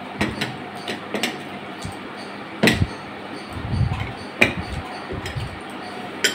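Scattered clinks and knocks of steel plates and bowls being handled during a meal eaten by hand, the two loudest knocks about two and a half and four and a half seconds in, with low muffled thuds between them.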